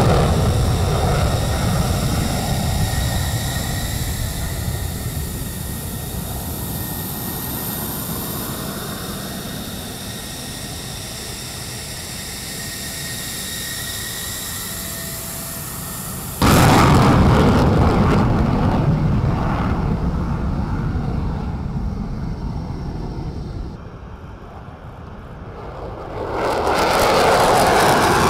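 F-16 fighter jet engine whining as the jet taxis past, fading away. About 16 seconds in, the sound cuts abruptly to louder jet engine noise, which dips briefly and swells again near the end.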